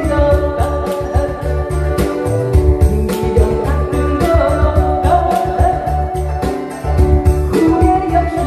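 A woman singing a Korean trot song over a backing track with a steady bass beat, amplified through PA loudspeakers.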